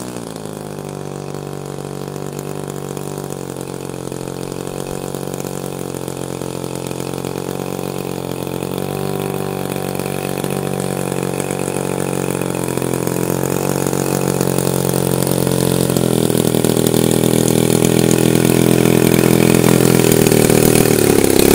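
Gasoline engine of a 42% scale Solution XX RC biplane idling as the plane taxis in after landing. It grows steadily louder as the plane comes closer, with small shifts in engine speed at a few points.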